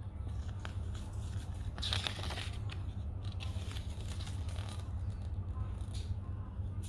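A folded paper instruction leaflet being unfolded and leafed through by hand, rustling and crinkling, with a louder rustle about two seconds in. A steady low hum runs underneath.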